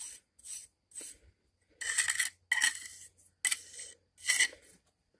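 Metal mortar jointing tool scraped along fresh mortar joints between bricks in about seven short strokes, tooling the joints smooth.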